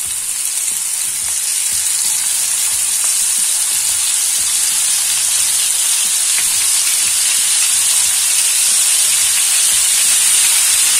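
Marinated fish steaks sizzling as they shallow-fry in hot oil in a nonstick grill pan: a steady, loud hiss that grows a little louder over the first couple of seconds as more pieces go in.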